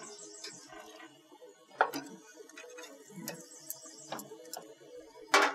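Metal tongs and utensils clicking and clanking against a gas grill's metal grates as racks of ribs are handled, with a louder clank about two seconds in and another near the end.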